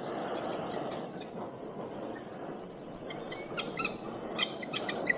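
Portable gas canister stove burning steadily under a pot of water being brought to the boil, a constant rushing hiss. A few light clicks and crinkles from handling packaging in the second half.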